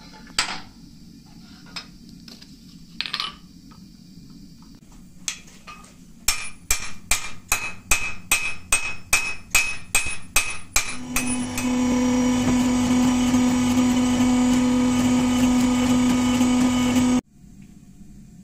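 A few scattered clinks of tools on the anvil, then a hand hammer forging a red-hot crucible (wootz) steel blade on the anvil, about three ringing blows a second for some five seconds. Then a steady machine hum with a strong low tone runs for about six seconds and cuts off suddenly.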